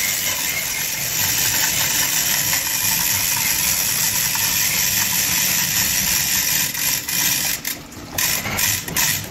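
Workshop machinery running with a steady mechanical noise, which breaks up into irregular clicks and knocks near the end.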